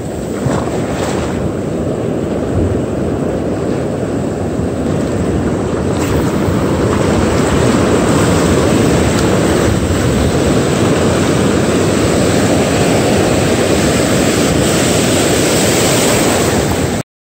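Ocean surf breaking and washing up around the wader's feet, a loud steady rush of water with wind buffeting the microphone. It swells a little louder about six seconds in, then cuts off abruptly at the very end.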